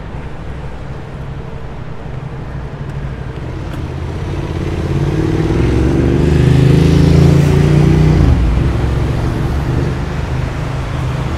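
A motor vehicle's engine passing close by in street traffic. It grows louder over several seconds, peaks about two-thirds of the way through, then fades back into the steady traffic rumble.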